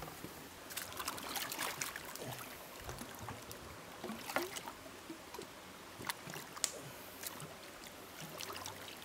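Water sloshing and splashing as a freshly cut bamboo tube is rinsed out in a stream, with a few short knocks, over the steady run of the stream.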